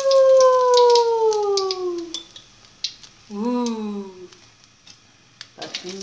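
A cat meowing: one long meow that rises and then slowly falls, a shorter one about three seconds in, and another starting near the end. Light clicks from a spatula tapping the wok and plate come in between, as an omelette is slid out of the wok onto a plate.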